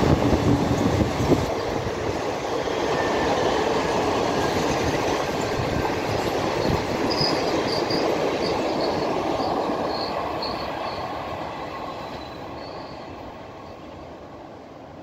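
Passenger train coaches rolling past on the rails, the wheels giving a series of short high squeals around the middle. The rolling sound fades steadily as the train draws away.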